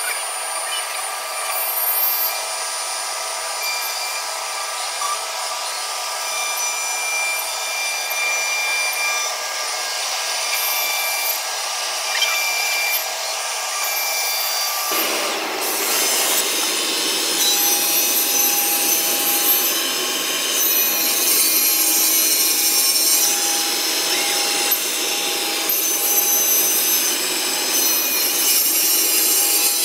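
Vertical CNC panel machining centre cutting a wooden panel, with steady machine noise from its spindle and cutter in the wood. About halfway through the sound changes abruptly and becomes louder and fuller as the machine saws the panel to size.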